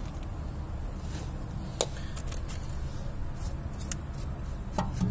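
A few light clicks and taps of metal parts and tools being handled at a car's front suspension, over a steady low rumble.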